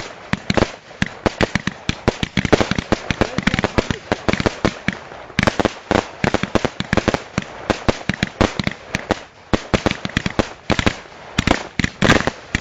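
Professional fireworks display heard close up from the firing position: a dense, irregular run of sharp bangs and cracks, several a second.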